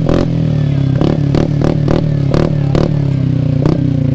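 TVS Ntorq 125 scooter's single-cylinder engine revved through a short SC slip-on exhaust on a stainless-steel bend pipe: repeated quick throttle blips, several a second, over a steady low exhaust drone.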